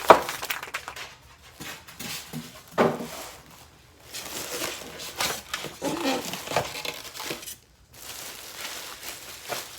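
Packaging rustling and crinkling in irregular bursts, with scattered clicks and a sharp knock right at the start, as grill parts are unpacked from their box.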